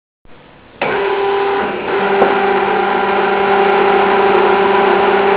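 Hydraulic press's motor-driven pump switching on under a second in and running steadily with a hum made of several held tones.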